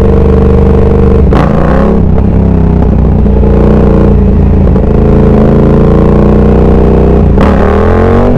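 Yamaha R7 sportbike's parallel-twin engine pulling at low speed, with a brief dip and recovery in revs about a second and a half in. Near the end the throttle is snapped open and the revs climb sharply: the power-up for a wheelie.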